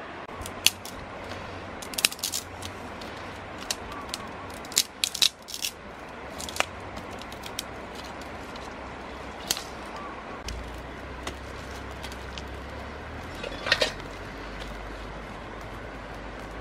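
Scattered sharp clicks and snaps of dry sticks and pebbles being picked up and knocked together on gravel, several in quick succession a couple of seconds in and another cluster near the end, over a steady background hiss.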